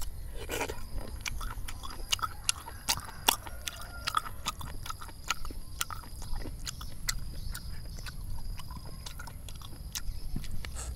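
A person chewing spicy fried snail meat close to the microphone, with wet mouth sounds and many short sharp clicks throughout.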